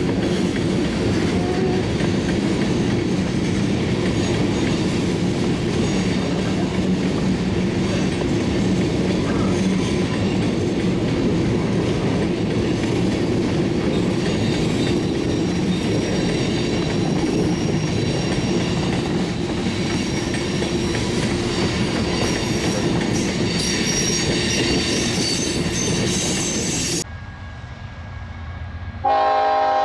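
Freight train of covered hopper cars rolling past close by: a steady rumble and clatter of steel wheels on rail, with a thin high wheel squeal in the later part. Near the end the train noise drops off abruptly, and a diesel locomotive's horn starts sounding from an approaching train.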